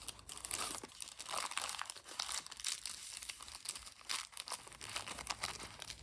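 Small toy packaging being handled, crinkling in irregular, crackly rustles.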